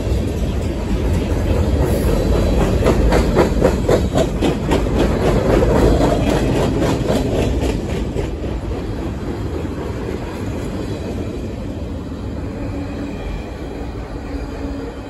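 Mixed freight train rolling past at close range: a heavy rumble of passing cars with rapid, repeated clicking of wheels over rail joints. About halfway through, the clicking stops and the rumble fades as the last cars go by and the train moves away.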